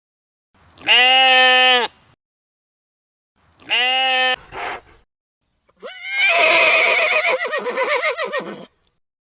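Sheep bleating: three calls, the last one long and quavering.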